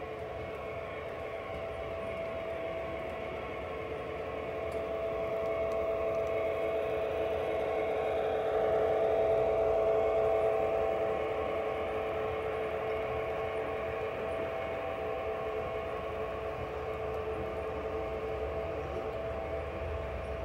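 O-scale model train running on the layout's track, a steady motor hum and wheel rumble that grows louder to a peak about nine seconds in, then eases off a little as it passes.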